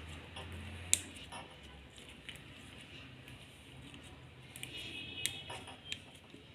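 Hands pressing and patting a sheet of slime flat on a stone countertop: quiet, soft squishing, with a few sharp clicks, one about a second in and two near the end.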